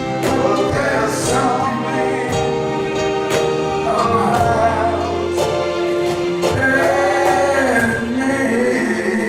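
Voices singing a gospel worship song with instrumental accompaniment: held sung notes over a bass line, with regular percussive strikes keeping the beat.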